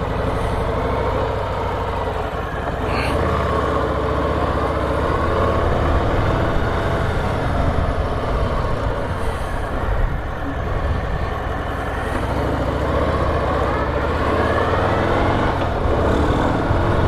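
Harley-Davidson FXDR's Milwaukee-Eight 114 V-twin on its stock exhaust, running under way as the bike rides off. The engine note rises and drops several times.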